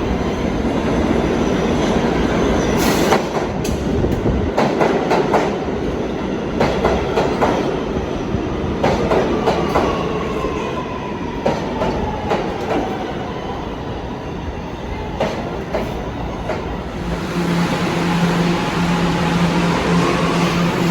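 R211 subway train running over the rails, its wheels clacking over joints again and again while a motor whine falls in pitch as it slows. About 17 seconds in a steady low hum takes over and a motor whine starts rising, as a train pulls away.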